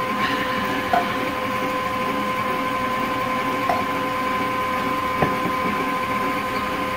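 Electric tilt-head stand mixer running steadily with a constant whine, its beater mixing thin, wet chocolate cake batter in a stainless steel bowl. A light knock about five seconds in.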